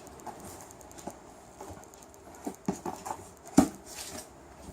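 A cardboard helmet box being opened by hand: scattered knocks, taps and rustles of cardboard, with one sharp knock about three and a half seconds in.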